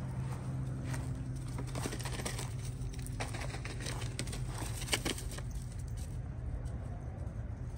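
Light crunching footsteps and rustling on dry leaves and grass, with a sharper crackle about five seconds in, over a steady low hum.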